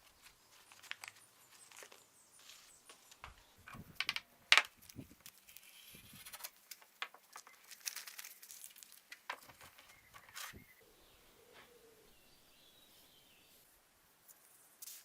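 Intermittent rustling and light knocks of things being handled, with one sharp click about four and a half seconds in.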